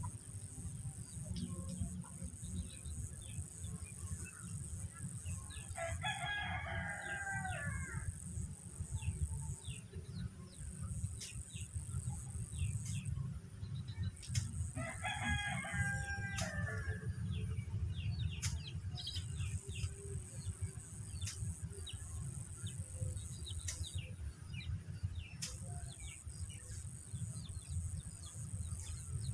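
A rooster crowing twice, each crow about two seconds long, the first about six seconds in and the second about nine seconds later. Underneath runs a steady high insect drone that stops and starts, along with small bird chirps and a low rumble.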